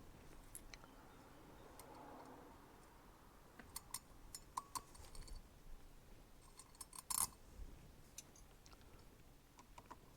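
Faint scattered light clicks and taps of small metal parts being handled on a motorcycle carburetor as the float bowl and its screws are fitted. A few clicks come close together around the middle, and the loudest comes about seven seconds in.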